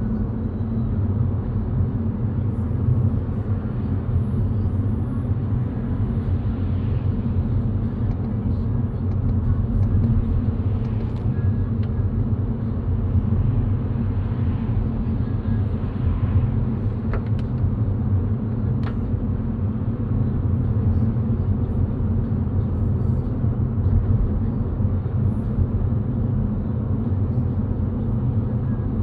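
Steady road and engine rumble of a car driving on a rainy day, with two faint clicks about a second and a half apart a little past halfway.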